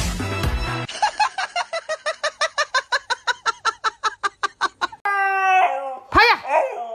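A rapid string of short high chirps, about eight or nine a second, then a husky howling in drawn-out calls that step and bend in pitch.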